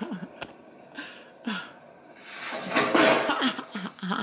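A woman laughing and chuckling in short vocal bursts, with a louder breathy burst about two and a half seconds in.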